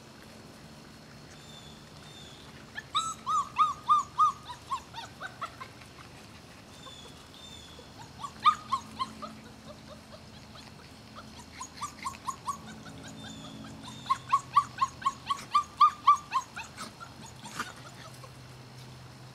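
Month-old Šarplaninac puppies whimpering in quick runs of short, high cries, coming in four bouts.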